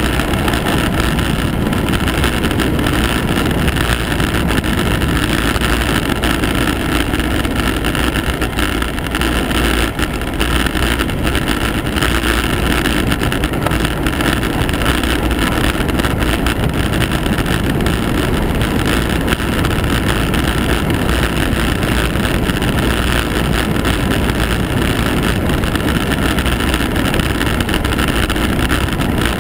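Steady rush of wind over the microphone, mixed with the running noise of the vehicle that carries the camera down a mountain road.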